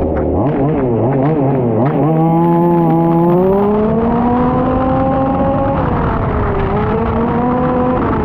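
Petrol engine of a 1/5-scale RC Formula 1 car, revving up and down quickly, then holding a note that climbs steadily for several seconds. The note dips briefly and climbs again near the end.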